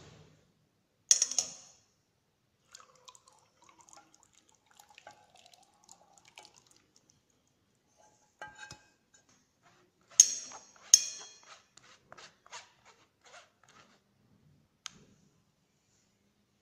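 A metal mesh sieve clinking against a bowl while chocolate cream is strained through it: one sharp ringing clink about a second in, two more about ten and eleven seconds in, then a run of lighter taps, with faint scraping in between.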